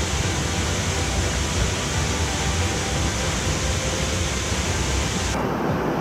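Waterfall pouring onto rocks: a steady, dense rush of falling water with a low rumble underneath. About five seconds in it turns suddenly duller, with much less hiss.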